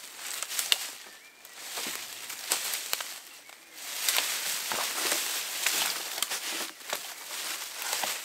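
Footsteps on dry leaf litter with twigs snapping underfoot, and a long cut pole or sapling dragged through the undergrowth, scraping and rustling the leaves in uneven bursts.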